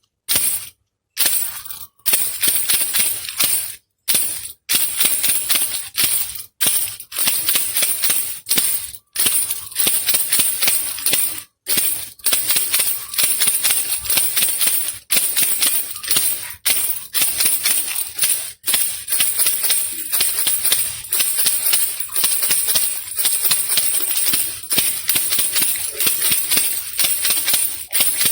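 Baby rattle shaken continuously: a dense, high-pitched rattling of loose beads, broken by brief pauses every few seconds.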